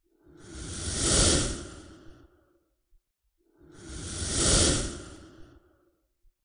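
Whoosh sound effect, repeated: two identical swells, each rising for about a second and then fading away, about three seconds apart.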